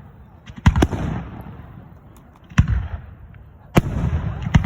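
Aerial fireworks bursting. Two sharp bangs come close together just under a second in, then three more single bangs follow roughly a second or more apart, each trailing off in a rolling rumble.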